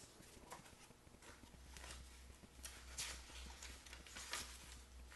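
Faint rustling and soft handling noises of a hardcover picture book being opened and its pages turned, over a low steady hum.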